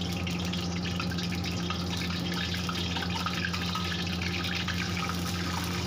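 Hot oil sizzling and crackling in a wok as a dried red chili fries in it. A steady low hum runs underneath.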